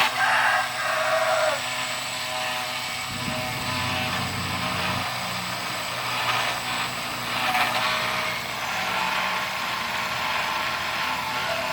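Mini CNC engraving machine running: a steady motor whine made of several held tones, with lower tones coming in and shifting for a couple of seconds about three seconds in.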